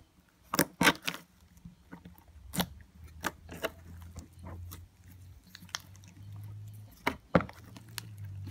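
Sticky glitter slime being squeezed and kneaded by hand, giving irregular wet clicks, pops and squelches, with a faint low hum underneath.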